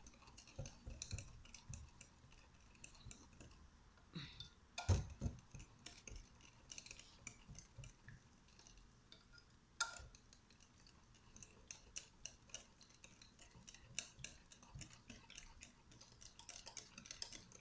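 Hand whisk clicking and tapping rapidly against a glass bowl while stirring a liquid leche flan custard mixture to dissolve the ingredients. Faint, with a louder knock about five seconds in and another near ten seconds.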